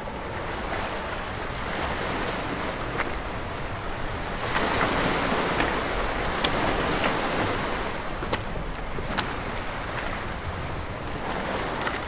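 Sea surf washing onto a pebble shore, swelling about four seconds in and easing off again, with scattered sharp clicks.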